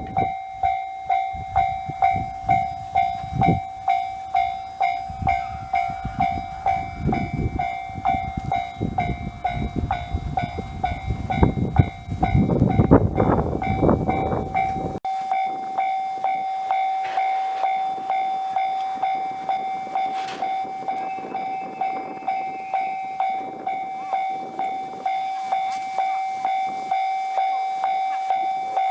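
Japanese level-crossing warning bell ringing over and over, about one and a half strikes a second. For the first half a train runs past over the crossing with a heavy rumble and wheel clacks, loudest around the middle; then the bell rings on alone.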